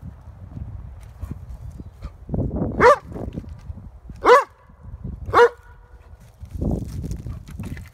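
Dog barking three times, single sharp barks about a second apart, at a chipmunk hidden in a woodpile. Its paws scuffle through pine needles and sticks between the barks.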